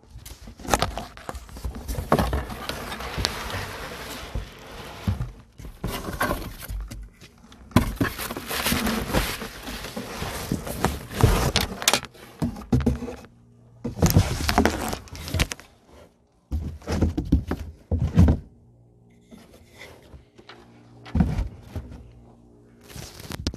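Cardboard scraping and plastic film crinkling, with several knocks, as a Philips SGS201 streetlight fixture in its metal housing is lifted out of its box and set down on top of it.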